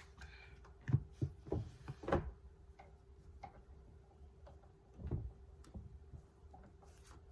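Tarot cards being handled and shuffled: a few light clicks and taps about a second in and around two seconds, and another about five seconds in, over a faint steady hum.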